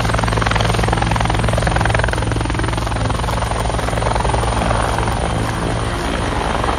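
Helicopter sound effect: rotor blades chopping rapidly and steadily over a low, even drone.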